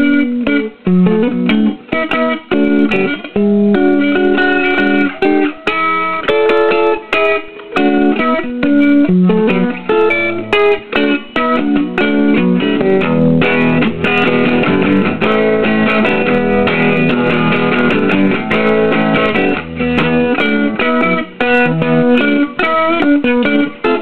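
Electric guitar played through a Gibson GA-20 RVT Minuteman amplifier turned up fairly high: a continuous stream of picked notes and chords, fuller and lower through the middle stretch.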